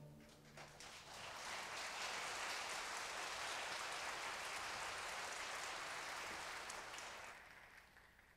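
Audience applauding as the orchestra's last chord rings away; the clapping starts about a second in, holds steady, and fades out near the end.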